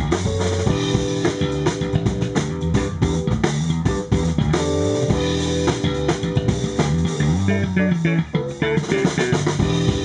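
Live funk band playing: electric bass guitar line over a drum kit groove, with keyboard chords.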